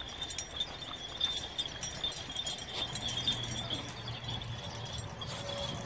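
Kangal dog eating raw tripe off the ground, with faint chewing and small clinks of its chain. A steady high-pitched ringing runs underneath.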